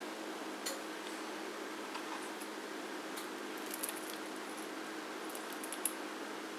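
Kitchen scissors snipping the legs and antennae off a raw shrimp: several small, sharp clicks at irregular intervals over a steady low hum.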